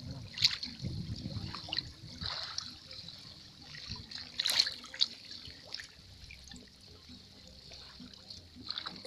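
Water sloshing and splashing as a person wades through deep swamp water, with a few louder splashes about half a second, two seconds and four and a half seconds in.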